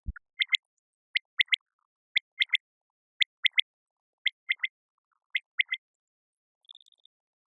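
Common quail calling its three-note song: six quick phrases of three short, liquid whistled notes, about one phrase a second. A brief low thump opens it, and a short high steady tone sounds near the end.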